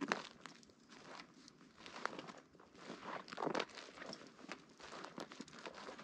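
Footsteps crunching and rustling through dry fallen leaves, with uneven steps and crackles between them; the loudest crunch comes about halfway through.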